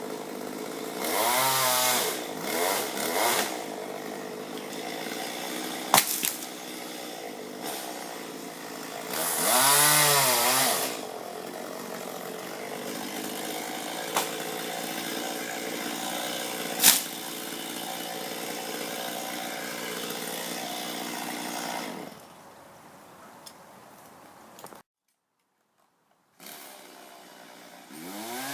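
Chainsaw engine idling steadily, revved up and back down several times, with a couple of sharp clicks. Near the end it drops much quieter, with a moment of total silence, before another rev.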